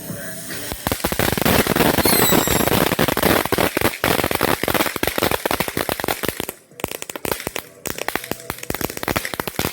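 Red Apple Fireworks Twitter Glitter firework crackling: a dense stream of rapid sharp pops starting about a second in, with a few short whistling chirps around two seconds in and two brief lulls late on.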